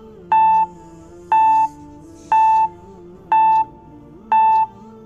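Quiz countdown timer beeping once a second: five short electronic beeps of the same pitch, over soft background music.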